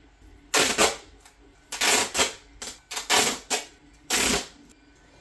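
Duct tape being pulled off the roll in quick strips: about six short, loud rips between half a second and four and a half seconds in.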